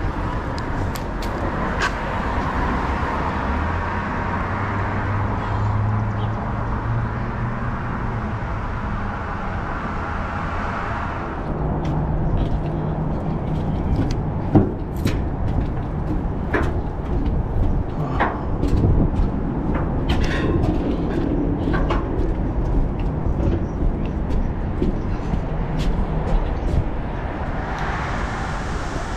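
Box truck running, a steady engine and road noise with a low hum. About eleven seconds in, the noise drops to a lower hum with a run of sharp knocks and clatters, and the steady noise comes back near the end.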